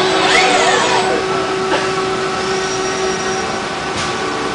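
A machine-tending cell of HAAS CNC lathes and a Fanuc robot running: a steady hiss with several whining tones, a short pitch glide near the start and a sharp click about four seconds in.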